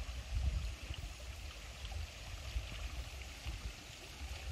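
Flowing river water, a steady rushing, with an uneven low rumbling beneath it.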